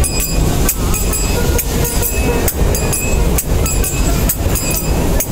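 Train carriage running with a steady low rumble and a string of sharp clicks. A few plucked lute notes sound faintly over it.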